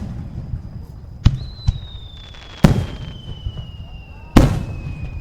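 Fireworks going off: four sharp bangs in the span of a few seconds, and a long whistle that begins about a second in and slowly falls in pitch.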